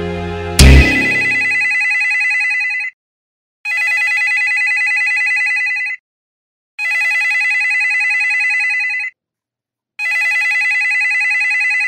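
Siemens cordless phone handset ringing four times: a rapid electronic trilling ring lasting about two seconds each, with short gaps between rings. It starts with a loud thump about half a second in, cutting off background music.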